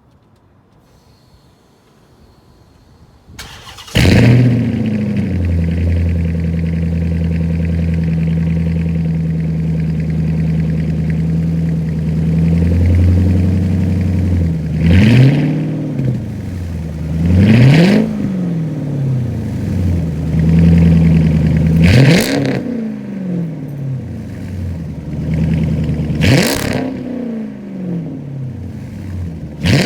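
A straight-piped Dodge Charger/Challenger Hemi V8 starts about four seconds in with a brief flare, settles into a steady idle, then is blipped several times from about fifteen seconds on, each rev a quick rise and fall in pitch.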